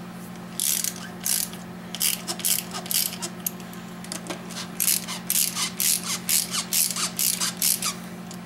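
Hand ratchet clicking in quick spurts with short pauses as bolts are run in, over a steady low hum.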